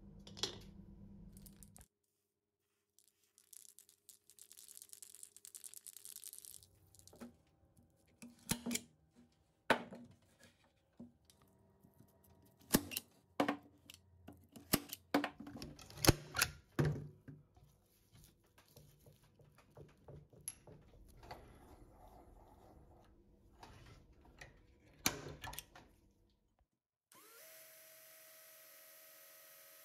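Workshop handwork: scattered sharp knocks and clicks, then near the end an electric drill starts and runs steadily as its bit bores into the head of a metal bolt held in a vise.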